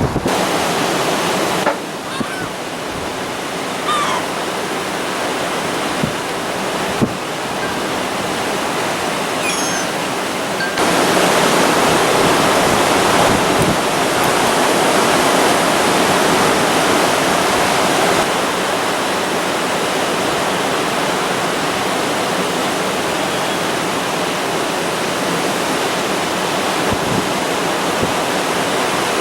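Large storm waves breaking and churning against the lakeshore in a dense, steady wash of water noise, with gusty wind. The level steps up abruptly about eleven seconds in.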